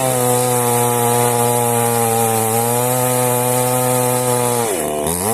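Chainsaw engine running at a steady high speed while sawing through a date palm trunk. Near the end its pitch sags briefly and climbs back up.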